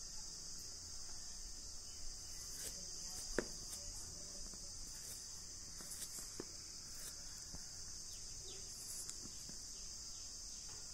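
Faint, steady high-pitched insect chirring in the background, with a few soft taps as a ruler is handled on a paper drafting sheet, about two, three and a half, and six seconds in.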